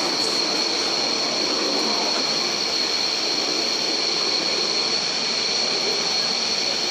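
Steady outdoor night ambience: a continuous high-pitched insect drone over an even rushing background noise.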